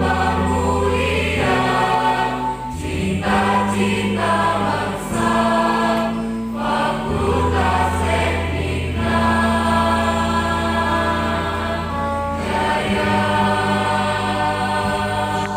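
Mixed choir of young men's and women's voices singing in harmony, holding long chords that change every few seconds.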